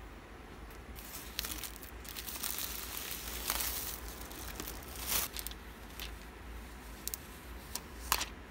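Clear plastic shrink-wrap being torn and peeled off an iPad Air box, crinkling and rustling in bursts. A few sharp clicks near the end.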